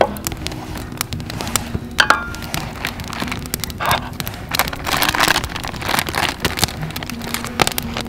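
Wood campfire crackling with many sharp pops, with light knocks as cups are set down on a wooden board and brief crinkling of a plastic snack bag.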